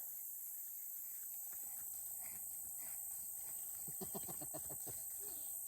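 Steady chorus of insects, a continuous high-pitched drone, with a short rapid rattling call about four seconds in.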